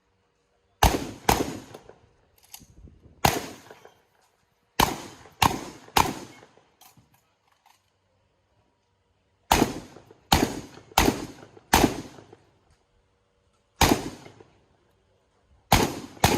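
About a dozen shotgun shots fired in quick groups: two, one, three, four, one, then two near the end. Each is a sharp report with a short echo, with pauses between the groups.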